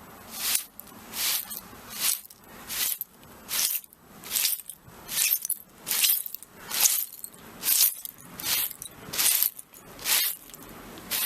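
Broom sweeping broken glass: a steady run of short, scratchy strokes, a little more than one a second, each one a bright, hissy crunch of glass fragments dragged across the floor.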